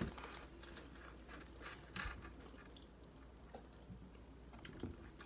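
Faint chewing and crunching of fried onion rings, with scattered small crackles and clicks.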